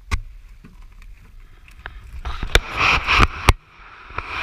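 Close-up scraping and rustling with sharp clicks, as parts are pulled and handled by hand: one click near the start, then a loud stretch of scraping and several clicks from about two seconds in, lasting about a second and a half.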